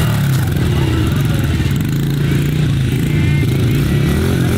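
Small dirt bike engines running, their pitch rising and falling with the throttle.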